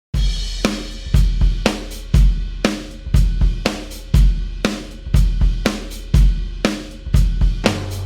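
Sampled rock drum kit from the EZdrummer 3 Classic Rock EZX library playing a groove: kick, snare, hi-hat and cymbal, with strong hits about twice a second. It starts suddenly and ends on a cymbal left ringing.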